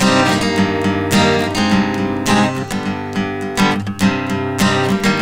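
Acoustic guitar strummed with a capo, playing chords in a steady rhythm.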